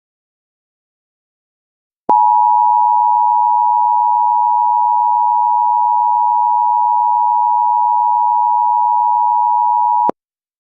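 Emergency Alert System attention signal: a steady, loud two-tone beep of 853 and 960 Hz sounded together. It starts about two seconds in, holds for about eight seconds and cuts off abruptly.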